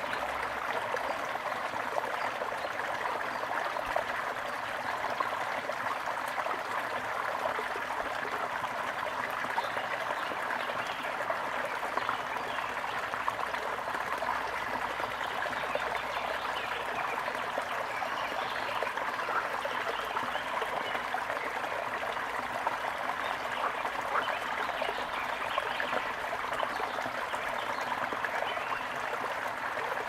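A stream flowing steadily, a continuous rush and trickle of running water.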